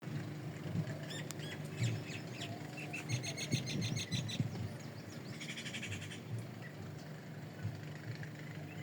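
Small birds chirping, with two quick trilled runs of high repeated notes in the middle, over a steady low hum.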